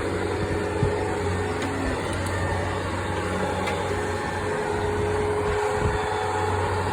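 An engine running steadily at low speed with a constant low hum.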